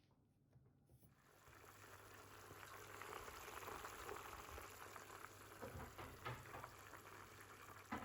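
Sugar syrup sizzling and crackling as it is poured over hot baked baklava, building up over the first couple of seconds, with a couple of sharp knocks near the end.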